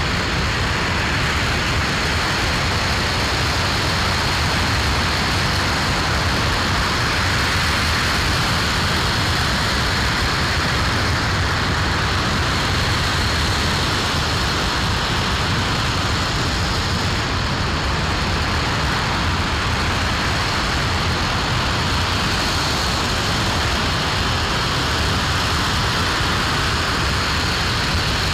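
Aerojet Rocketdyne RS-25 liquid hydrogen–liquid oxygen rocket engine firing steadily in a static hot-fire test: a loud, continuous, even noise with a faint steady high tone over it.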